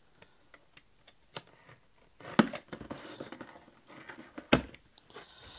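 Cardboard shipping box being forced open by hand, packing tape and flaps that resist. A few faint clicks, then from about two seconds in louder tearing, scraping and rustling, with one sharp knock about four and a half seconds in.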